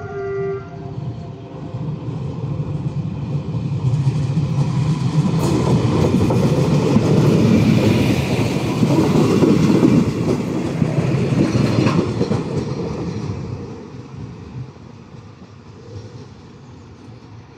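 Short horn blast from an Alstom Coradia Lint diesel multiple unit. The train's running noise then builds, is loudest about seven to twelve seconds in, and fades away.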